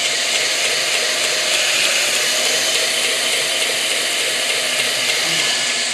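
Homemade 2x72 belt grinder, driven by a treadmill motor, running at low speed with nothing on the belt: a steady whir and hiss of the abrasive belt over its wheels.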